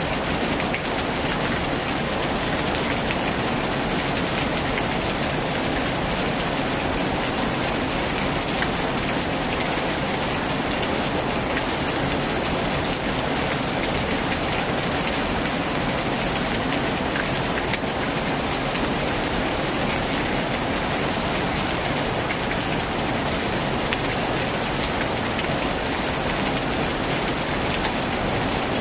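Heavy rain falling in a steady, even hiss, with no thunder.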